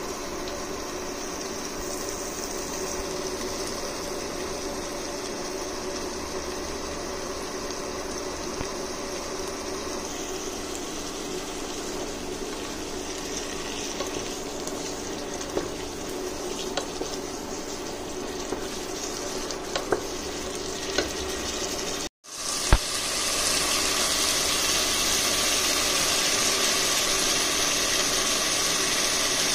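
Taro-stem, potato and dried-fish curry simmering and sizzling in a non-stick pan, a steady hiss with a steady hum underneath and a few light clicks. The sound drops out briefly about two-thirds of the way through and comes back as a louder, even hiss.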